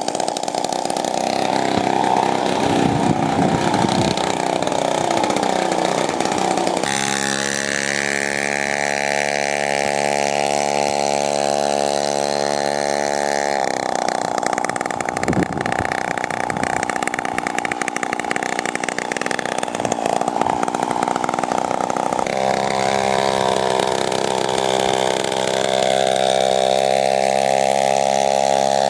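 The two-stroke chainsaw engine of a home-built scooter running under way, its pitch wandering up and down in places and holding steady for several seconds at a time, with abrupt changes in its note a few times.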